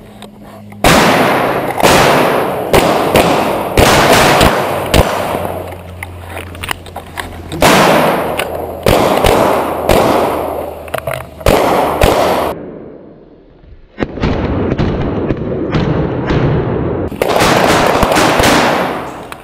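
Volleys of loud gunshots and bangs, rapid and sharp, each with a ringing tail. They start about a second in, ease briefly about two-thirds of the way through, then resume.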